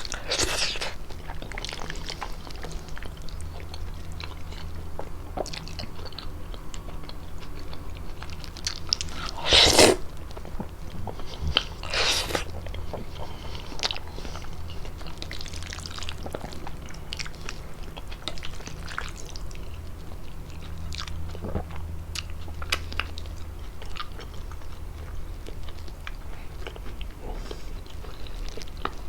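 Close-miked chewing and biting of fettuccine pasta with chicken: a run of small wet mouth clicks, with a few louder bursts, the loudest about ten seconds in and another about two seconds later.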